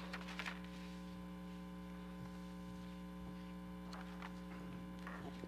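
Steady electrical mains hum on the meeting-room microphone system, with a few faint rustles and clicks of paper being handled near the start and again about four to five seconds in.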